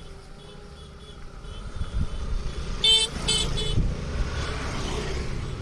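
A motor vehicle's low rumble growing louder, with a quick run of three short horn toots about three seconds in.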